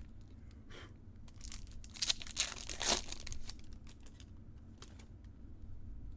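A foil trading-card pack wrapper being torn open and crinkled, loudest about two to three seconds in, with small clicks of cards being handled around it.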